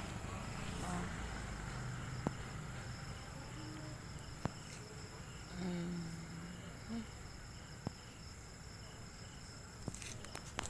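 Night insects chirring steadily in high, even tones. A faint voice comes in briefly about halfway through, and a few sharp clicks sound at intervals.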